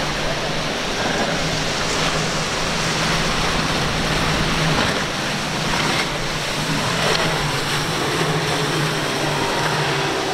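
Twin Mercury 250 hp outboard engines on a Sea Vee center-console boat running at speed, a steady low hum under the loud rush of breaking waves, spray and wind.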